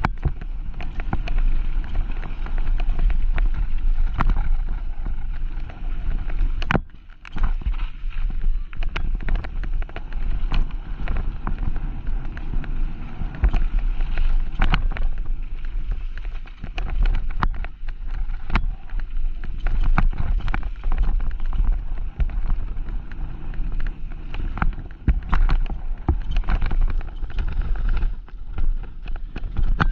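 Mountain bike riding down a rough bike-park trail: wind buffets the rider's camera microphone in a steady rumble, and the tyres and the bike's frame, chain and suspension make frequent clatters and knocks over the bumps.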